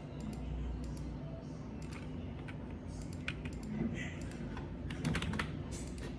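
Typing on a computer keyboard: irregular keystrokes over a low, steady hum, with a cluster of louder strokes about five seconds in.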